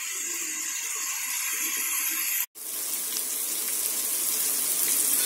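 Onion and spice masala sizzling steadily in hot oil in an aluminium pot as it fries down to the stage where the oil separates. The sound cuts out for an instant about halfway through.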